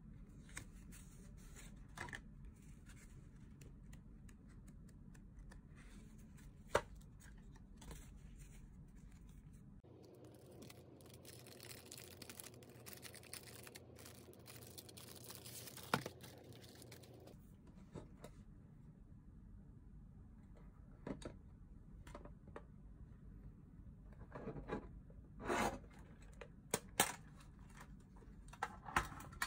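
Unboxing handling noise: sheets of watercolor paper rustling, then several seconds of a clear plastic sleeve crinkling in the middle, with a few sharp clicks. Near the end comes a run of clicks and taps as a plastic watercolor palette case is handled and opened.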